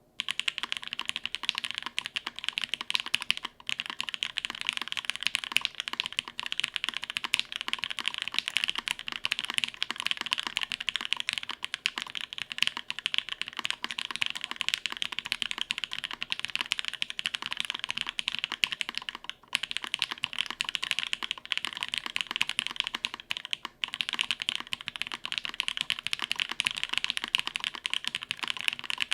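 Continuous fast typing on a Matrix 2.0add custom mechanical keyboard fitted with Gateron Box Ink Black V2 linear switches on an undampened carbon fiber plate, with GMK keycaps. It makes a dense, even clatter of keystrokes, broken by a few brief pauses.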